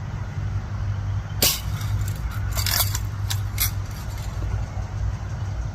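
A BB gun fires with a sharp crack about a second and a half in, followed by a few short, lighter clicks over a steady low rumble.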